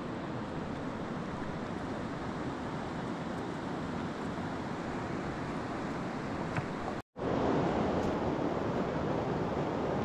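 Rushing mountain river water, a steady, even roar of flowing current. It cuts out abruptly for a split second about seven seconds in, then comes back a little louder.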